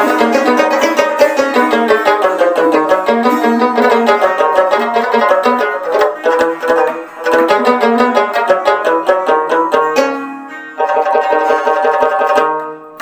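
Background music: a plucked string instrument playing a quick run of notes, briefly dipping a little after ten seconds in.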